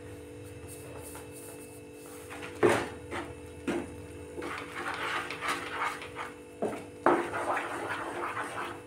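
A wooden spatula stirs and scrapes a thick palmyra-juice and semolina mixture in a metal pan, with a few sharp knocks of the spatula against the pan. The scraping grows busier about halfway through, over a steady low hum.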